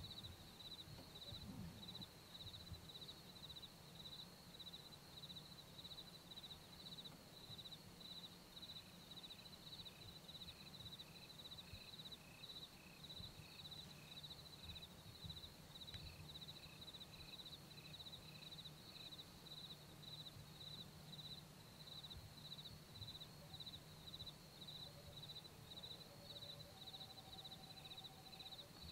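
Faint insects chirping in a field: one keeps up a steady, rapid, high-pitched pulsing, while a second calls in slower regular chirps, lower in pitch, through the middle and again near the end. A faint low hum lies beneath.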